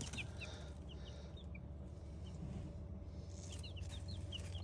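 Two-week-old Easter Egger and Silkie chicks peeping: short, faint, downward chirps scattered throughout, busiest near the start and again near the end, over a low steady hum.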